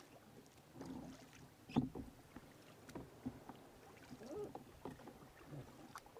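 Kayak paddle strokes in calm water: the blades dip and splash on alternate sides, with water dripping off them and an occasional light knock. The strokes come irregularly, the sharpest splash about two seconds in.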